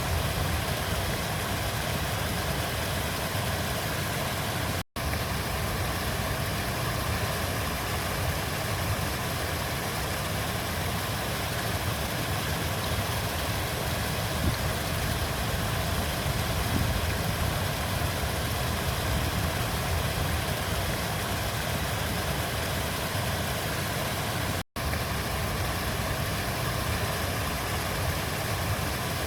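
River water flowing steadily, an even rushing noise with no change in level. It cuts out completely for an instant twice, about five seconds in and about four seconds before the end.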